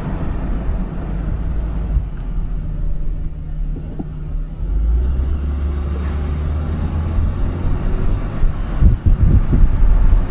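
Steady low rumble of a car's engine and tyres heard from inside the moving car, growing louder about halfway through.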